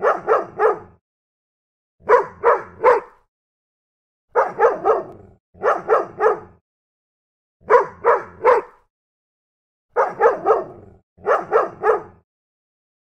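A dog barking in quick bursts of three, seven bursts in all, with silence between them.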